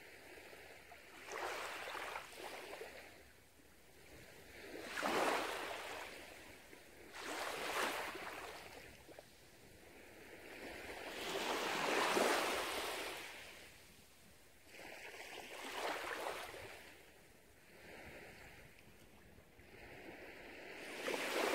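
Small waves lapping onto a sandy beach, each one a soft rush of surf that swells and fades, every two to four seconds.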